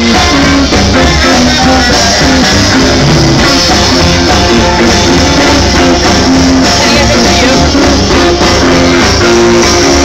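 Live swing music played loud through a PA speaker: a steady bass beat with held melody notes over it.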